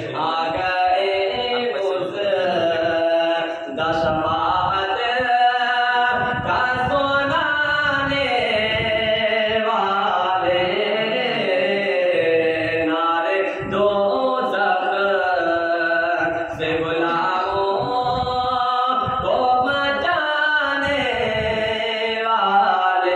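A single voice chanting an Islamic devotional recitation through a microphone, in long held notes that glide up and down with short breath breaks between phrases.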